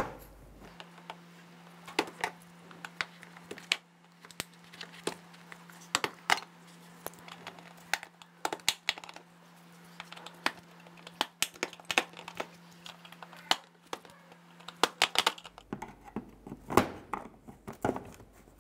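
Plastic push-pin clips along the lower lip of a Honda Pilot's front bumper being pried out with a screwdriver and trim tool: a string of irregular sharp plastic clicks and snaps as the centre buttons pop up and the retainers come free.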